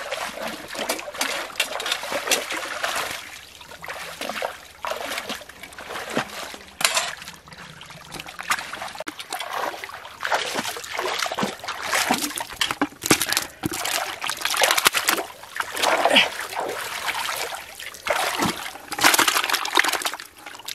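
Irregular splashing and sloshing of shallow muddy water as fish are scooped up with a rope net and tipped into a bucket of water holding a carp.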